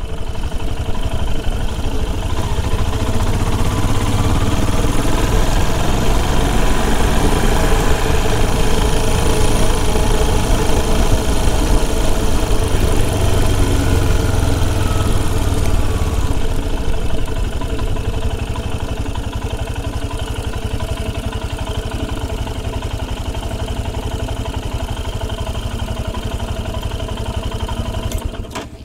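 Royal Enfield Himalayan motorcycle's single-cylinder engine running under way, steady throughout and a little quieter from about seventeen seconds in as the bike eases off.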